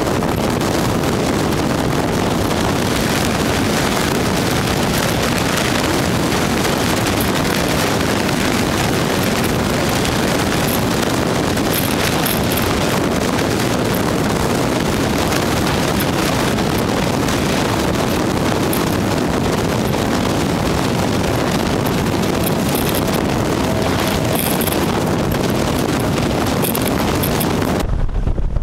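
Heavy wind blowing across the microphone of a boat-mounted camera, a loud steady rushing over water streaming past the hull of a sailboat heeled in strong wind. The noise changes abruptly near the end.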